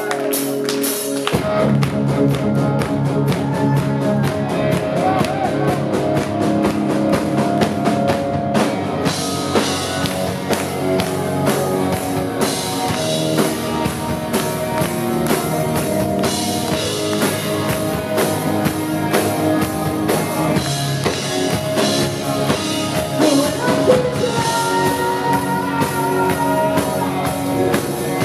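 Live rock band playing loudly: electric guitar, bass guitar, drum kit and keyboards together, with steady drum hits; the bass comes in fully about a second in.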